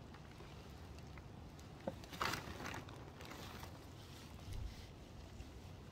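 Hands scooping compost from a plastic compost bag: a brief rustle and crunch a little after two seconds, preceded by a single click. A low wind rumble sits on the phone's microphone throughout.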